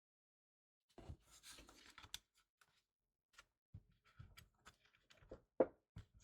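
Small scrapes, clicks and knocks of a plastic Bluetooth speaker casing being handled and pried during disassembly. There is a scraping stretch near the start, then scattered taps, with one sharper knock near the end.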